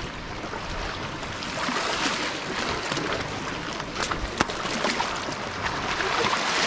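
Sea waves washing against a rocky shore: a steady surf wash, with two sharp clicks a little after four seconds in.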